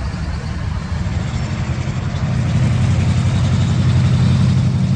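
Engine running with a low, steady rumble that grows louder about two and a half seconds in.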